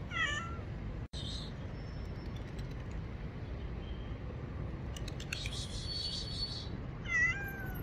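Small street kitten meowing: a short, high, wavering meow at the start and another near the end. In between, about five seconds in, comes a brief high-pitched sound.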